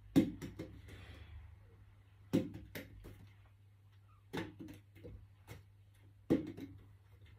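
Plastic water bottle flipped and landing on a carpeted floor again and again: a sharp knock about every two seconds, several followed by a smaller bounce as the bottle tips or settles.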